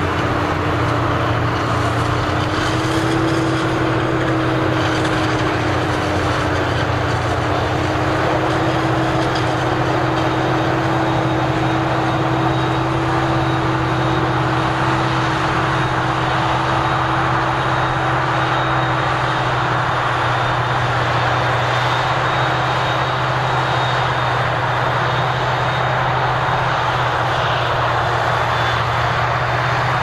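Claas Jaguar self-propelled forage harvester running under load, chopping maize and blowing it through its spout into a trailer, with a John Deere 7R tractor running alongside. A loud, steady machine drone with a held hum, unbroken throughout.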